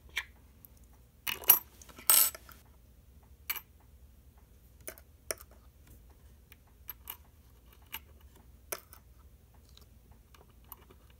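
Keys and small metal washers clicking and clinking against each other and the tabletop as they are handled and fitted onto a KeyBar key organizer. The clicks come one or two at a time at irregular intervals, with a louder cluster about two seconds in.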